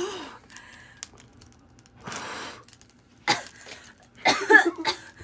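A woman blows hard at trick relighting birthday candles, with long breathy puffs, then coughs several times, the loudest run about four to five seconds in.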